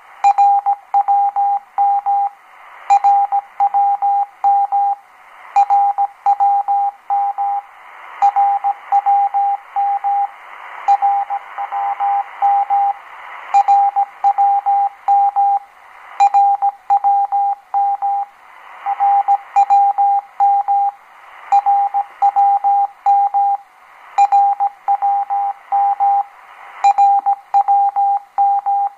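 Morse code station identification "RWM" from the Russian time-signal station on 9996 kHz shortwave, heard through a Degen DE1103 receiver: a single beeping tone keyed in the same short group of dots and dashes, repeated about every two and a half to three seconds over rising and falling shortwave hiss.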